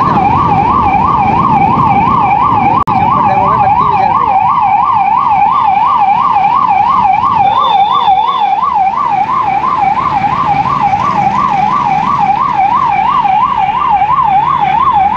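Police PCR van's electronic siren on a fast yelp, warbling up and down about three to four times a second, with vehicle road noise beneath. It cuts out for an instant about three seconds in.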